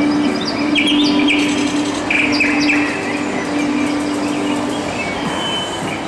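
Recorded birdsong played through the loudspeakers of an artificial 'tweet tree': short chirps and trills repeating in quick groups. Under it runs a steady low hum that stops about five seconds in.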